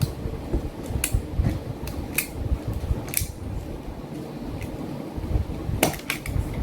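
Stanley knife blade cutting through heavy battery cable, a string of short, sharp clicks and scrapes about a second apart, over a steady low rumble.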